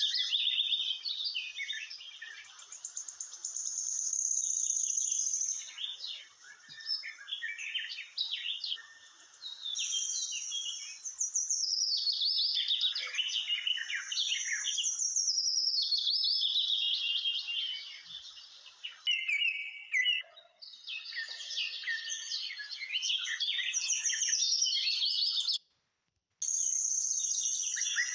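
Birds chirping and singing: many quick high calls and falling glides that overlap one another. The sound breaks off for under a second near the end.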